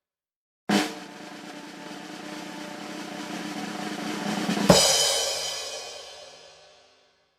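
Snare drum roll sound effect: it starts with an accented hit, swells steadily louder for about four seconds, and ends in a loud final hit that rings out and fades over about two seconds.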